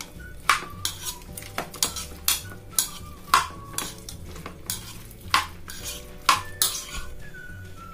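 Metal spoon stirring chopped vegetables and sauce in a plastic bowl: irregular clicks and scrapes of the spoon against the bowl, about two a second.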